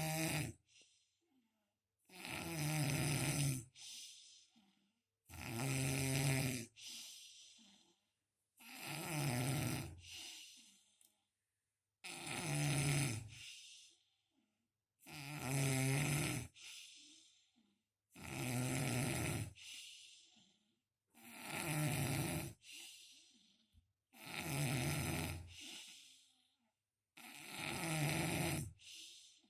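A person snoring in a steady rhythm, about one breath every three seconds. Each breath is a long snore followed by a short, quieter one.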